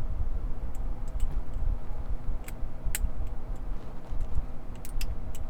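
Irregular small metallic clicks of a lock pick and tension wrench working inside a Brinks padlock's keyway, over a steady low rumble from a covered microphone.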